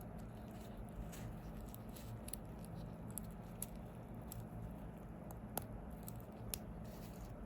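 Sparse light clicks and taps from small tools and parts being handled during watch work, over a steady low hum. The sharpest click comes about five and a half seconds in, with another a second later.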